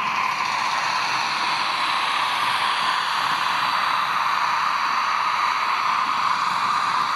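PIKO H0-scale model of a PKP EU07 electric locomotive with a sound decoder, playing a steady rushing, hiss-like running sound through its small onboard speaker as it passes. The sound is thin, with almost no bass.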